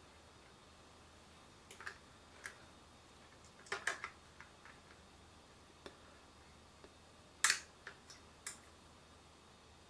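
Scattered light crinkles and clicks of fingers handling and peeling thin plastic film with a sticker tab. The sharpest snaps come about four seconds in and again about seven and a half seconds in.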